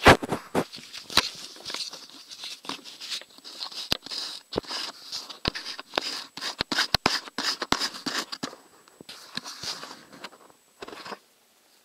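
Handling noise on a camera: irregular clicks, knocks and rustling against the microphone, with no engine running.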